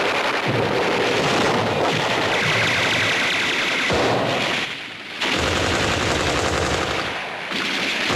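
Heavy machine-gun fire in long rapid bursts, with a short break about five seconds in.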